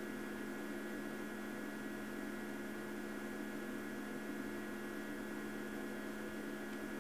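Steady electrical hum with a faint hiss from a powered-up Romi C680 CNC lathe standing idle, its spindle stopped.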